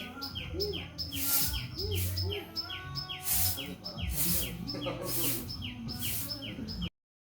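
A bird chirping over and over, each chirp a quick falling note, about three a second, mixed with brief rustling noises. The sound cuts off abruptly near the end.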